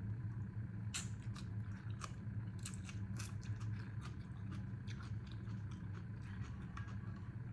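A person chewing chicken pho noodle soup up close: irregular small mouth clicks and smacks, over a steady low hum.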